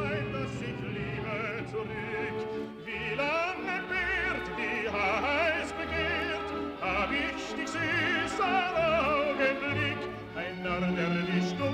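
Operatic singing with a wide vibrato over orchestral accompaniment, with held low bass notes that change about every second.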